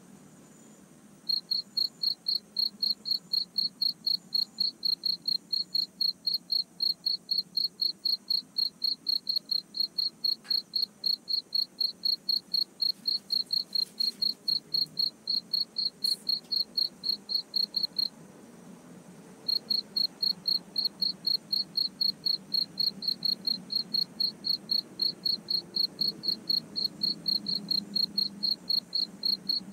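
Cricket chirping in a fast, even rhythm of about four high-pitched chirps a second, starting about a second in and pausing for a second or two about two-thirds of the way through before resuming.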